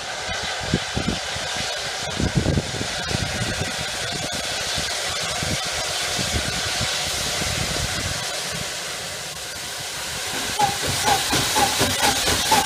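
Hunslet Austerity 0-6-0 saddle tank steam locomotive working a passenger train towards the listener, with a steady hiss of steam. Near the end its exhaust beats come through as a regular chuff, about two to three a second.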